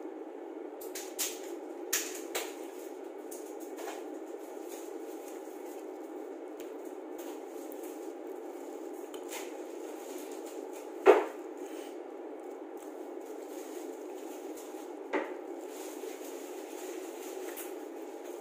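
Shrimp and crab shells being peeled and cracked by hand, giving a few sharp cracks and clicks, the loudest about eleven seconds in, over a steady background hum.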